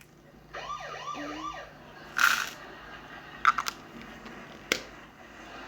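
A short, rapidly wavering siren-like wail of about four quick rising-and-falling sweeps, followed by a brief rustle and a few sharp clicks as small plastic toys are handled.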